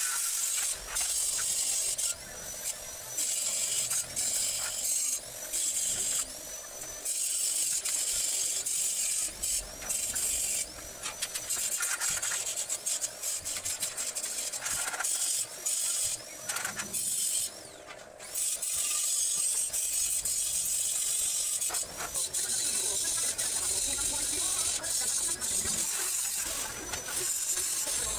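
Angle grinder grinding square steel tubing: a loud, steady high hiss, broken by many short pauses after which the grinder's whine rises back up to speed.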